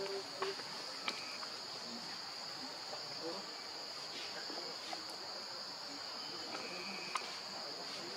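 Steady high-pitched drone of forest insects, with a few faint clicks scattered through it.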